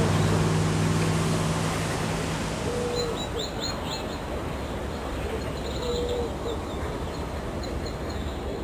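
Outdoor ambience: a steady rush of wind noise with a few bird chirps, in two short bouts. A low hum, such as from a distant engine, sounds for the first two seconds, then fades out.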